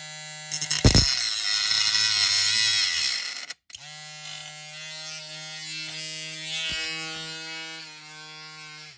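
Small electric rotary tool running with a steady whine while cutting through the interior piece of a diecast model car. It is louder and rougher for the first few seconds under cutting load, drops out briefly, then runs on more lightly and stops near the end.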